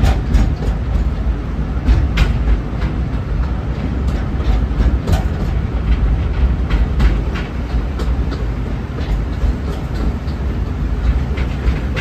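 Narrow-gauge forest railway train running along the track, heard from its open passenger car: a steady low rumble with irregular clacks and rattles.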